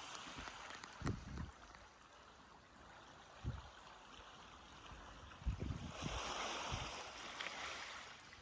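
Sea water washing against the shore, with a swell of surf about six seconds in. A few short low thumps are heard through it.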